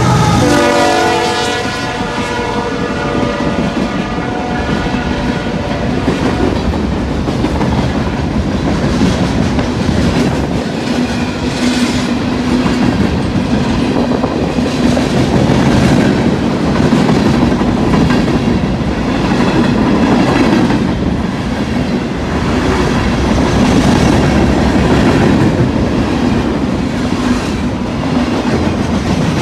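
Freight train passing close by. The locomotive's horn trails off about a second in, its pitch sliding down as it goes by. Then the cars rumble past with a steady, rhythmic clickety-clack of wheels over rail joints.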